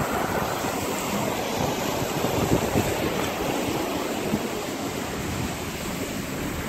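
Water rushing and splashing along the hull of a JPK 38 sailing yacht under way, with wind buffeting the microphone.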